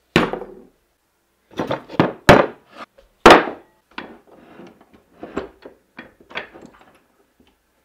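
Sharp knocks and clanks of tools handled on a wooden workbench: a metal canister set down, then a cast-iron bench vise being worked, its sliding handle and jaws clanking. The loudest knocks come at the very start and around two and three seconds in, with lighter clanks after.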